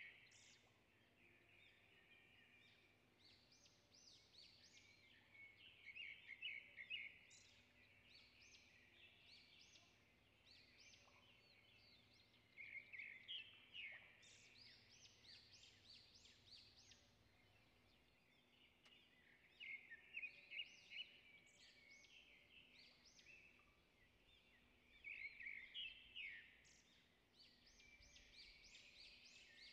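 Faint birdsong: a quick, high chirping phrase repeated about every six or seven seconds.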